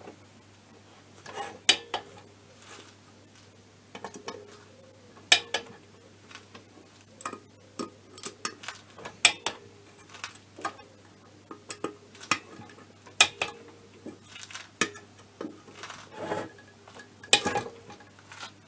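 Torque wrench on the crankcase bolts of an MBK Spirit scooter engine: irregular sharp metallic clicks and clinks as the wrench is worked bolt by bolt. The wrench's clicks mark the 13 N·m tightening torque being reached.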